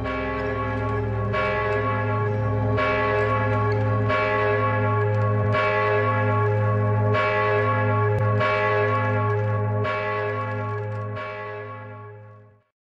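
Large church bells tolling, a new stroke about every second and a half over a deep ringing hum. The ringing fades and stops near the end.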